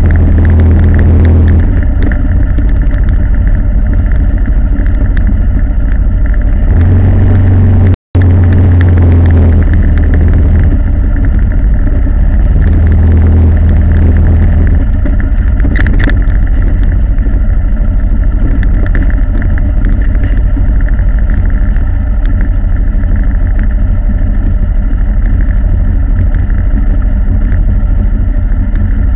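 A moving road vehicle: loud, steady engine and road noise with a heavy low rumble. The sound drops out completely for a split second about eight seconds in.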